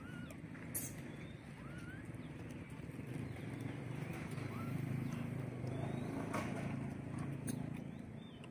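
Outdoor background: a low rumble that swells in the middle and fades near the end. A few short, rising squeaks or chirps and an occasional sharp click sound over it.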